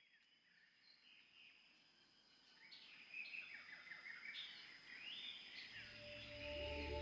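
Many birds chirping and singing, fading in and growing louder. Soft ambient music with steady held tones and a low drone comes in near the end.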